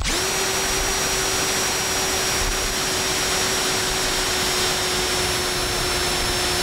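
Milwaukee cordless drill spinning up and then running steadily at one pitch, boring a long bit into the end grain of a wooden fence post. The drill is under heavy load, twisting hard in the hand.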